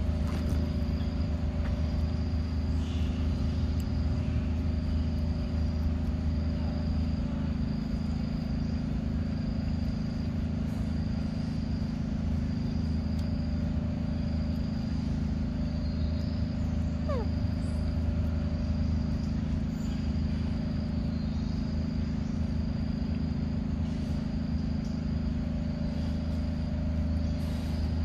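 A steady low hum, with an insect chirping in an even high pulse about once a second.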